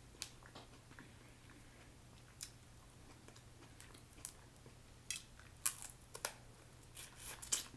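Cooked snow crab legs being cracked, pulled apart by hand and eaten: scattered sharp clicks and crackles of shell, clustered in the last couple of seconds. A faint steady low hum runs underneath.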